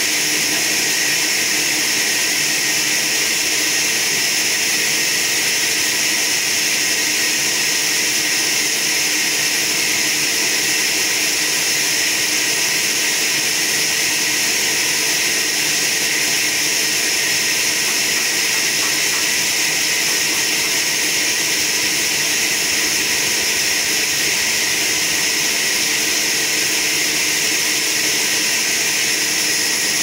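Sawmill machinery running steadily: a loud, even hiss with a few faint steady hum tones beneath it, unchanging throughout.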